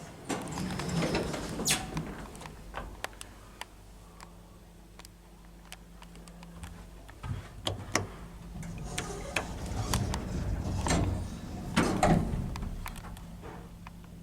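Old Otis passenger lift in operation: sliding doors, scattered clicks, and a low steady hum while the car runs, which changes about halfway through.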